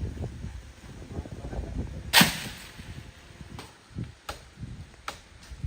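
Blows on wood: one loud sharp crack about two seconds in, then regular sharp knocks a little under one a second, like hand chopping.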